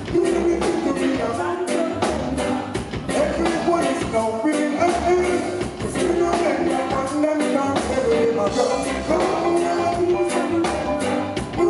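Live reggae band playing a steady beat, with drum kit and electric bass guitar.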